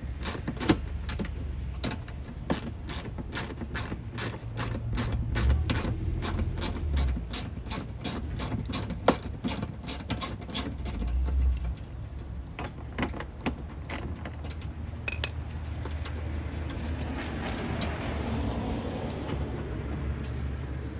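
A ratchet clicking steadily, about three clicks a second, as it backs out the 7 mm bolts holding the parking light, then a few scattered clicks later on.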